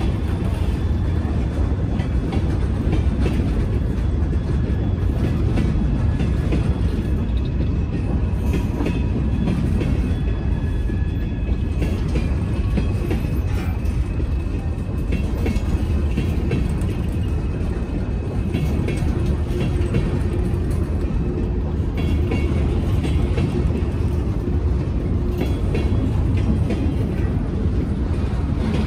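Freight train rolling past: a steady rumble of wheels on rail with faint high squealing tones over it.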